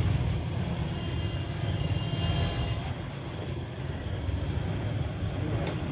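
Steady low mechanical rumble, with a faint high whine about a second or two in.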